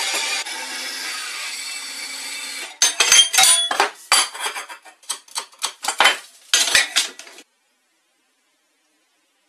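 A steady whirring noise stops abruptly just under three seconds in. Then lengths of square steel tubing clank and knock against each other and the wooden workbench as they are handled and stacked, a string of sharp metallic hits.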